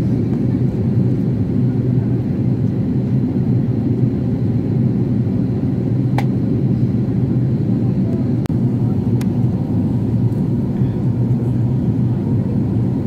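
Steady drone of a jet airliner's engines and airflow heard inside the passenger cabin, with a few faint clicks about six, eight and nine seconds in.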